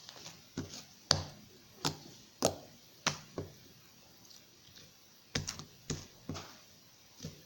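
Sticky homemade slime being squeezed and pulled in the hands, giving a series of sharp little pops and clicks, about ten in all, with a pause in the middle.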